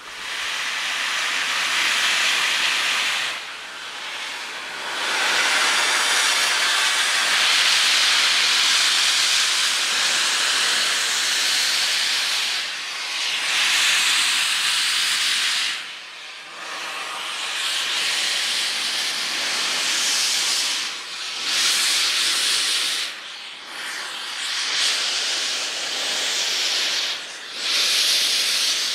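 Steam locomotive Flying Scotsman, an LNER A3 Pacific, venting steam with a loud, steady hiss from low at its front end, likely the cylinder drain cocks; the hiss breaks off briefly several times, at irregular intervals.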